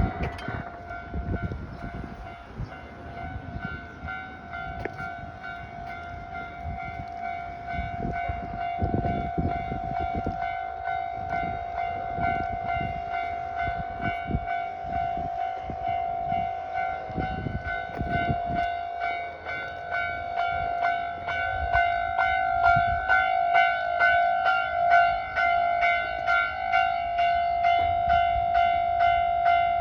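Japanese level-crossing warning bell ringing continuously in quick repeated dings, getting louder over the second half. Low clattering thuds of a passing train come under it through the first two-thirds.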